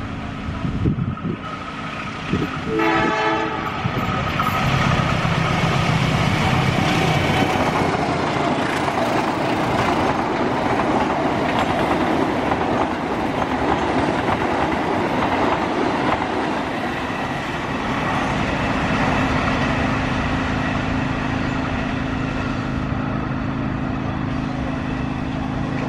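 A KAI CC206 diesel-electric locomotive hauling a passenger train sounds a short horn blast about three seconds in. The train then passes close by with loud wheel-and-rail rumble and clatter, easing off after the midpoint as it moves away, with a steady engine tone carrying on.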